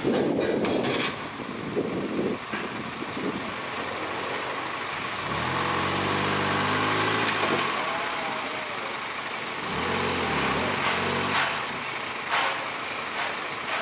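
Truck engine running, with two stretches a few seconds long where its low note rises and holds, and a few knocks near the start and end.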